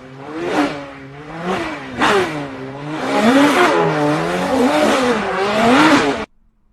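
Car engine revving sound effect, its pitch rising and falling in repeated swells and cutting off suddenly near the end.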